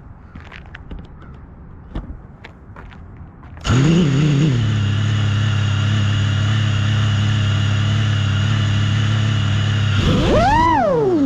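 FPV quadcopter's electric motors starting abruptly about a third of the way in and running at a steady whining pitch. Near the end, a throttle punch makes the whine rise sharply and fall back. Before the motors start there are a few light clicks.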